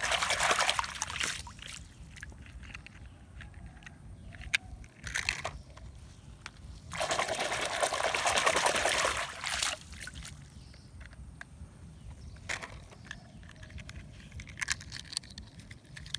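Water pouring and splashing in two louder spells: one in the first second or so and one lasting about three seconds in the middle. Quieter trickling with scattered small clicks comes in between.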